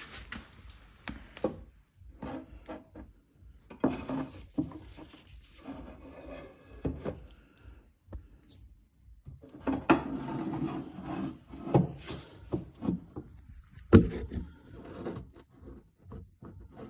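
Mk1 Escort bumper being offered up and lined up against the car: irregular scraping and rubbing of metal with scattered knocks, the loudest knock about three-quarters of the way through.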